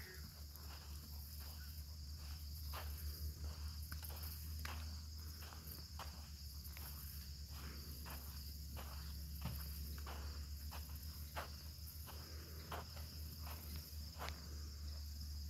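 Insects chirring steadily in the background, with faint, scattered thuds of a pony's hooves trotting on a sand arena.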